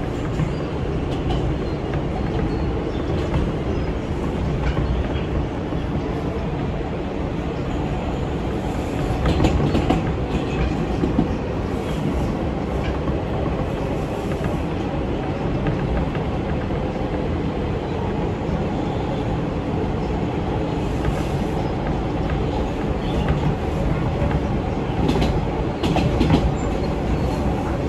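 R160B subway car running at speed, heard from inside: a steady rumble of wheels on the rails, broken by sharp clacks over rail joints, clustered about nine seconds in and again near the end.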